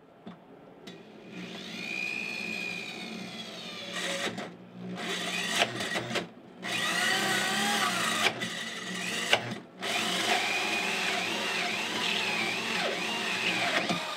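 DeWalt drill spinning a hole saw through wooden wall sheathing boards, its cutting whine wavering in pitch as the saw bites. The drill stops and restarts briefly a few times.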